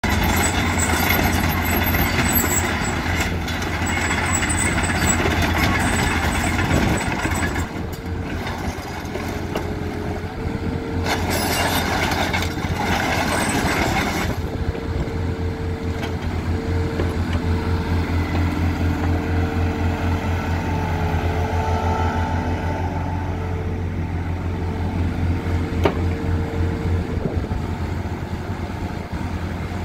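Kubota KX161-3 mini excavator's diesel engine running steadily while the boom and arm are worked. A hydraulic whine comes and goes in the second half, and there are louder, noisier stretches in the first half.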